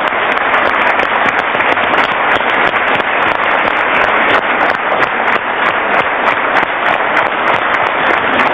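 Studio audience applauding, a dense, even clatter of many hands clapping at a steady level.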